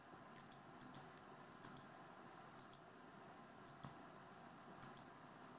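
Faint computer mouse clicks over low room hum, mostly in quick pairs, about seven pairs spaced roughly a second apart.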